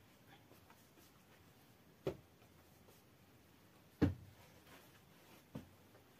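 Three soft, dull thuds of balls of bread dough being set down on a flour-dusted cloth, the second the loudest.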